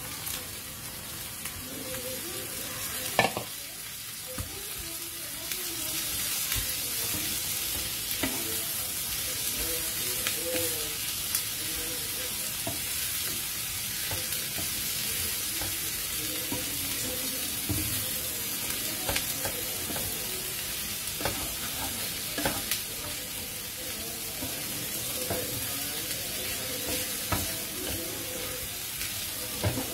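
Sliced bitter gourd, egg, onion and chillies sizzling in oil in a frying pan as a spatula stirs them. The spatula scrapes and taps the pan now and then, with one sharp knock about three seconds in.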